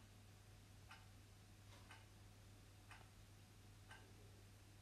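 Faint clock ticking about once a second over a low steady hum.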